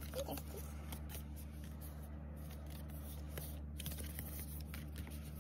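Stiff cardstock of a pop-up card and its paper folder being handled and folded, rustling with a scatter of light, crisp clicks and scrapes, over a steady low hum.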